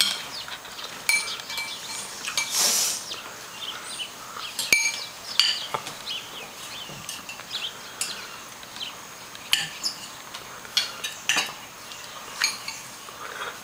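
Cutlery and dishes clinking at a dinner table: scattered light clicks of forks against plates, with one short rush of noise about three seconds in.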